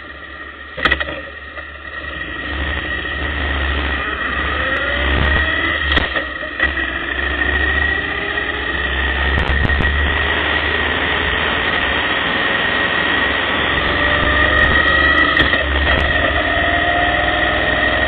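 Motorcycle engine running as the bike pulls away. It grows louder over the first few seconds and then holds steady, with the engine note rising through the gears over a steady rush of wind and road noise.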